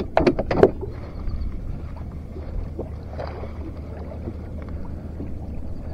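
Water lapping against a small boat's hull, with a steady low wind rumble on the microphone. A quick cluster of sharp clicks and knocks comes in the first moment.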